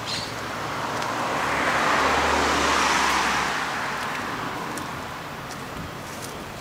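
A car driving past on the street, growing louder to a peak about two to three seconds in and then fading away.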